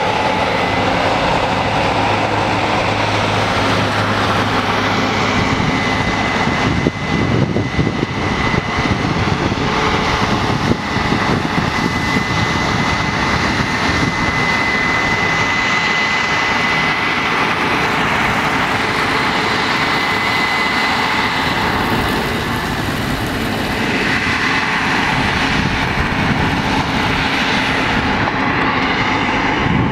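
Case IH 9230 Axial-Flow combine harvester running steadily under load while harvesting, a continuous engine and machinery drone with a thin, steady high whine over it.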